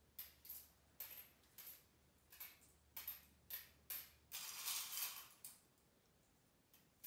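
Faint clinks of pennies being picked from a small metal bowl and set one by one into an aluminum-foil boat, about two light clinks a second. About four and a half seconds in comes a longer rattle of coins in the bowl.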